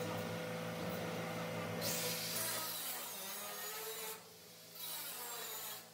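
Plasma cutter cutting the steel wall of a 1000-gallon tank. A steady low hum is followed, from about two seconds in, by the torch's loud hiss, which breaks off briefly around four seconds and stops near the end.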